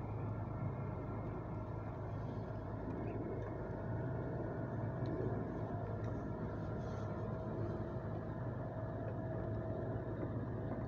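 Steady, unchanging mechanical hum: a low drone with a constant higher tone above it.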